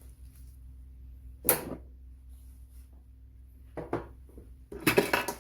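Handling noise of hard objects: a sharp knock about a second and a half in, a couple of small taps near four seconds, and a short rattling clatter near the end, over a faint low hum.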